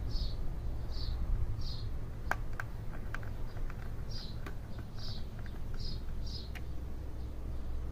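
A small bird chirping repeatedly, short high chirps in pairs and small groups with a pause midway, over a low steady rumble and a few clicks.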